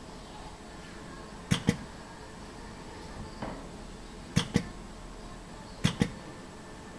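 Three pairs of sharp clicks, a couple of seconds apart, from handling leather shoe pieces at a hand edge-inking applicator and a rack of metal hanging clips, over a steady background hum.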